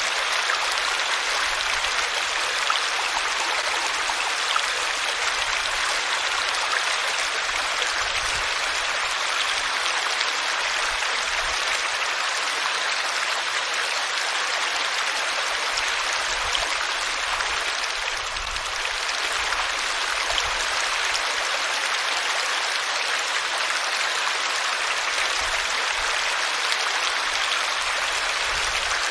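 Water flowing steadily in a stream, an even rushing and babbling that dips briefly about two-thirds of the way through.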